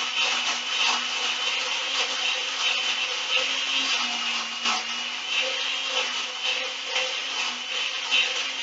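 Countertop blender running on its highest setting, grinding chocolate chips with raw eggs: a steady motor hum and high whine that waver slightly in pitch, over a dense grinding noise.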